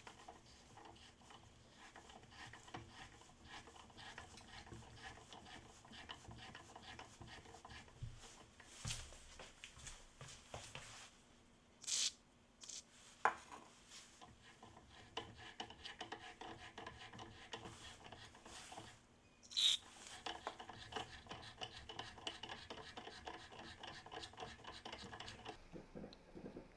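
A rusty keyless drill chuck being twisted back and forth by hand on its spindle: a dry, grainy rasp of metal rubbing on metal, with a few sharp clicks partway through.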